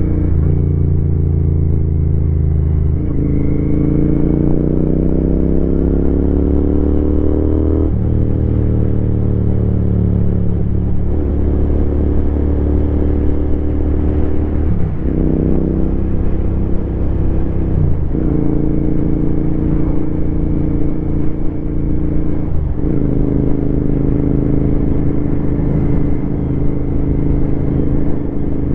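Royal Enfield Continental GT 650's parallel-twin engine running under way. Its note climbs steadily as the bike accelerates, then steps at several brief breaks as gears change.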